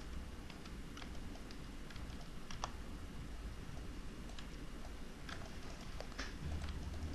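Scattered, irregular clicks of a computer keyboard and mouse being operated, over a faint low hum.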